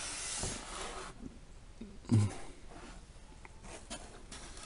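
Faint rubbing and rustling of a hand handling a cardboard toy garage model, with a brief low bump about two seconds in.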